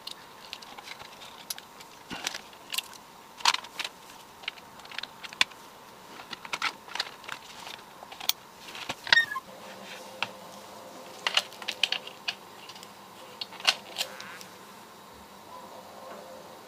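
Irregular clicks and taps of plastic case parts, circuit board and cable plugs being handled as a video switcher is reassembled and its HDMI lead plugged in. A faint steady hum joins about ten seconds in.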